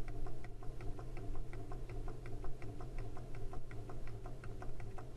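Rapid, even ticking, about four ticks a second, over a steady low hum.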